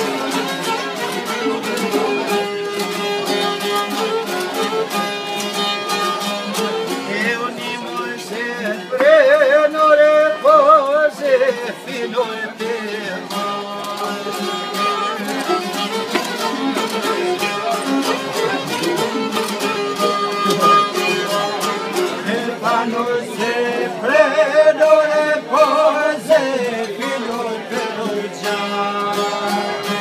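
Albanian folk music on long-necked plucked lutes, a sharki and a çifteli, playing a steady dense accompaniment. A high, strongly wavering melody line comes in louder twice, about nine seconds in and again about 23 seconds in.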